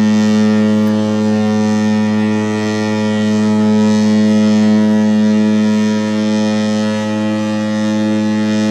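Cruise ship Norwegian Star's horn sounding one long, deep, steady blast as the ship departs its berth, cutting off near the end.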